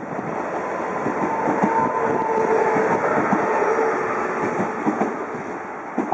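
Freight train of tank wagons rolling through, wheels clattering over rail joints and points, with a faint squealing tone in the middle; the sound eases off near the end.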